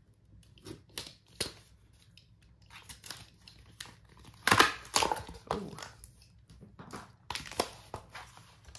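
Utility knife slitting packing tape on a small cardboard box, then the tape being peeled and the cardboard flaps pulled open: a run of short scrapes, crinkles and rustles, loudest about halfway through.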